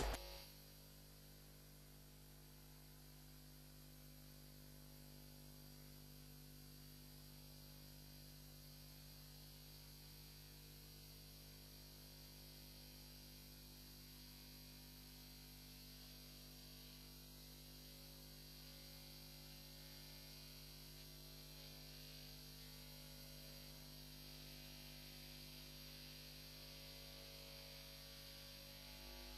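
Near silence: only a faint steady electrical hum and hiss.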